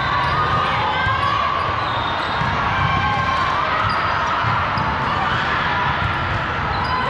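Busy gym during volleyball play: balls bouncing and being hit, many short squeaks of sneakers on the court floor, and a steady din of voices echoing in the hall.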